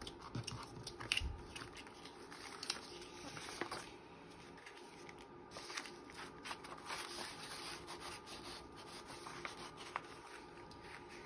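Paper and card being handled and shuffled: soft rustling with scattered sharp taps and clicks, the loudest about a second in.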